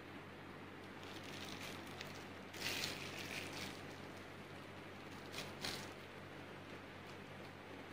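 Plastic piping bag of whipped cream crinkling as it is squeezed, in two short bursts about two and a half seconds in and again near six seconds, over a faint low hum.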